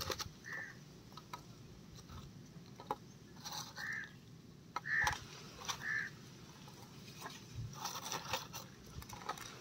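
A bird calling outdoors: a few short, clear calls, three of them close together near the middle. Between them come light clicks and rustles as fried pakoras are set down on a plastic tray, with a brief scratchy burst near the end.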